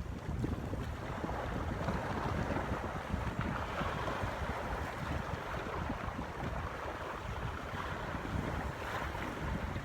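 Wind buffeting the microphone in gusts, over a steady outdoor rushing hiss.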